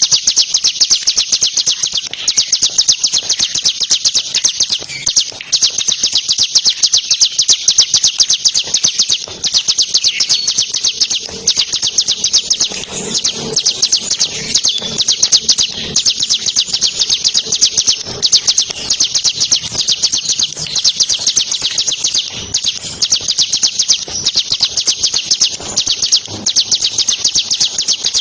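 A ciblek (bar-winged prinia) singing a fast, continuous rattling trill of rapid high notes, the machine-gun-like 'ngebren' song valued in a songbird. There are only brief breaks now and then.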